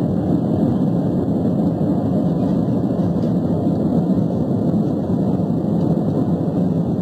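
Steady cabin noise of a jet airliner in flight: the even, low rush of the engines and airflow heard from a window seat.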